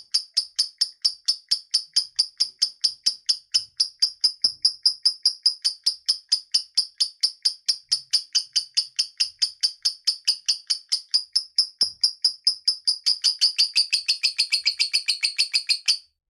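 Lovebird singing its ngekek: a long, dense, unbroken run of rapid high chirps, about five or six a second. It quickens near the end and then stops abruptly.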